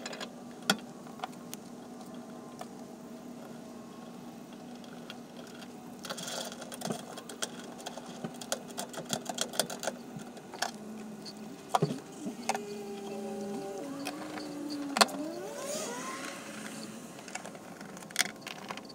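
Small metal parts clicking and clinking as a fuel tank level sending unit is bolted down and its access cover refitted. A small electric motor whirs in the middle, its pitch sliding down and then up.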